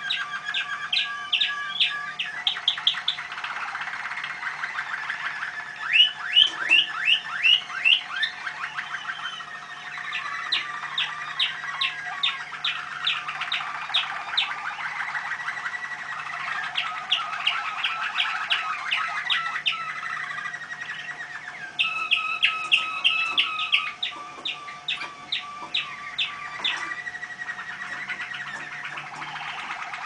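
Caged domestic canaries singing: an unbroken song of rapid trills and rolls of repeated notes, the tempo and pitch changing from phrase to phrase.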